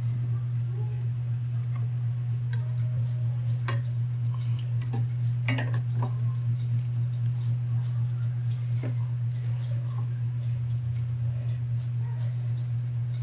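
A steady low hum with a quick regular pulsing, with a few light clinks of a metal ladle against the pot of stew.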